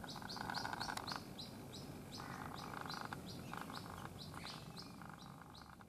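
White-breasted waterhen chick calling non-stop: a rapid, even series of short high peeps, each falling in pitch, about three a second. It is the call of a chick separated from its mother. A lower buzzing drone comes and goes in long stretches underneath.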